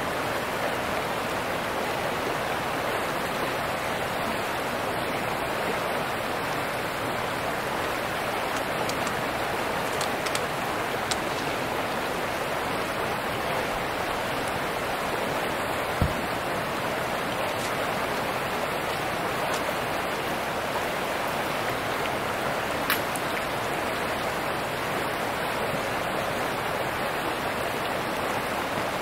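A fast river rushing over gravel makes a steady noise. A few light clicks and one louder knock about halfway through come from the rooftop tent's telescoping ladder being pulled out and set up.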